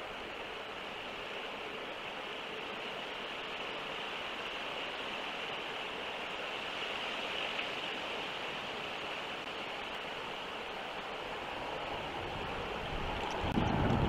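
Steady rushing wind noise on an outdoor camera microphone, with a short low rumble of a gust near the end.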